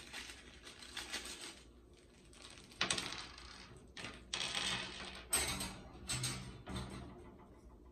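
Small metal screws and fittings for a dish rack jingling in cupped hands and clinking as they are tipped onto a tabletop: a few sharp clatters, the loudest about three and five seconds in.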